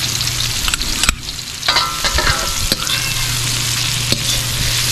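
Onion and garlic sautéing in hot oil in a pan, a steady sizzle, with a spatula clicking against the pan several times.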